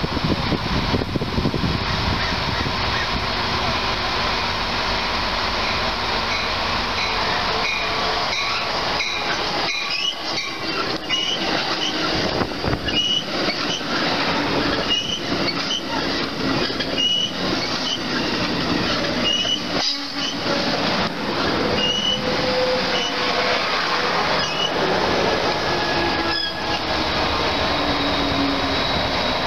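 Amtrak Pacific Surfliner passenger train passing close by: a steady rolling rumble from the bilevel cars, with short high wheel squeaks and clicks repeating about once a second through the middle. Near the end the train's Siemens Charger diesel locomotive comes past.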